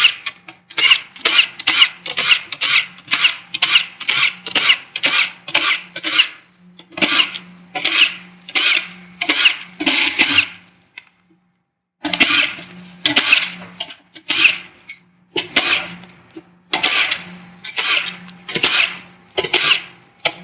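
Power drill fitted with an 8 mm socket spinning bolts out one after another, in a quick run of short bursts about two a second, with a short pause about eleven seconds in.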